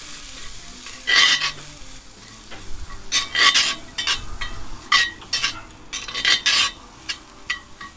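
Metal spoon stirring diced bacon and onion in a hot cast iron pot, scraping the bottom in a string of uneven strokes over a low sizzle of frying fat.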